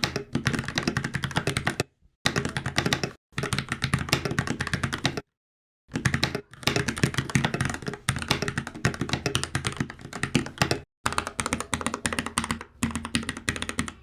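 Fast typing on a Keychron K14 aluminum-frame mechanical keyboard with brown tactile switches: dense clacking of keystrokes, broken a few times by brief dead-silent gaps.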